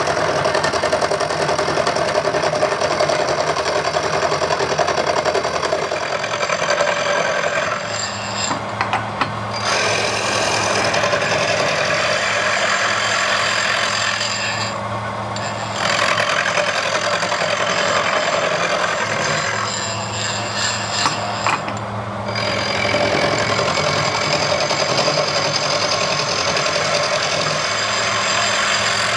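Milling machine with a big milling cutter taking the thick stuff off a welded aluminium motorcycle side casing: a steady, loud cutting rasp over the low hum of the running spindle. The cutting noise eases off briefly three times while the machine keeps running.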